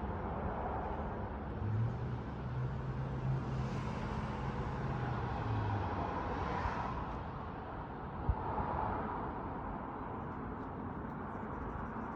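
Outdoor background noise with a motor vehicle's low engine hum passing by, and a single sharp pop about eight seconds in.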